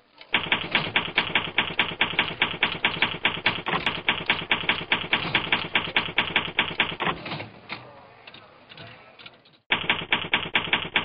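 Typewriter key strikes clacking in a quick, even run of about five a second, the sound effect of text being typed out letter by letter. About seven seconds in they give way to a softer, fading sound, then stop briefly. Near the end they start again.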